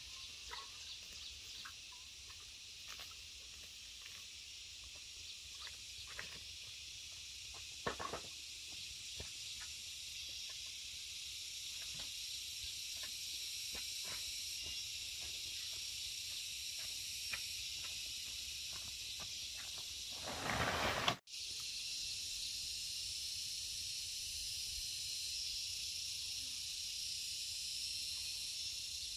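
Steady high-pitched insect drone, with scattered light clicks and knocks over it. About two-thirds of the way through, a louder rustling noise swells for about a second and then cuts off abruptly.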